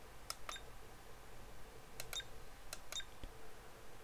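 Plastic control buttons on a generic digital camcorder clicking as they are pressed to step through its menus: three presses, each a quick pair of clicks.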